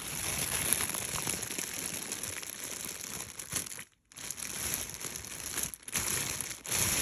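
Plastic bag crinkling and rustling as it is handled and opened, breaking off for a moment about four seconds in.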